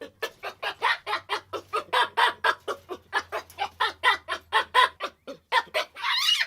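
Chicken clucking in a fast, even run of short calls, about four to five a second, with a harsher squawk near the end.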